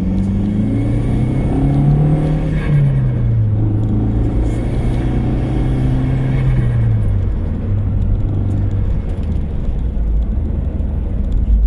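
Audi TT 225's 1.8-litre turbocharged four-cylinder (APX) engine running. The revs rise, hold, then drop back about seven seconds in. Through it runs a knocking that sounds like rod knock but comes from a loose timing belt tensioner.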